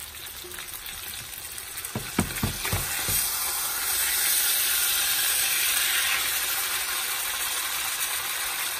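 Swai fish fillets sizzling as they fry in a cast-iron skillet, with a few knocks of a slotted spatula against the pan about two seconds in. The sizzling grows louder from about three or four seconds in.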